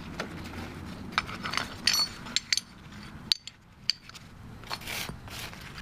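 Irregular light metallic clinks and clicks as freshly cast lead fishing weights and their metal moulds are handled.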